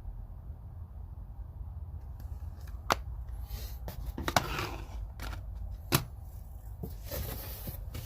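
Things being handled: three sharp clicks or knocks, a second or so apart, with some rustling, over a steady low hum.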